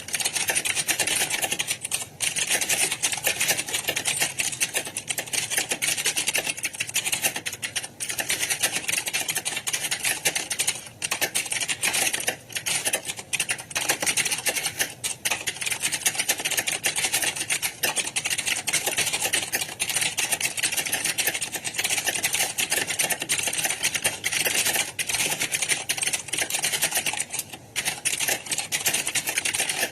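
Many computer keyboards being typed on at once in a typing exam hall: a dense, continuous clatter of key clicks, with a few brief lulls.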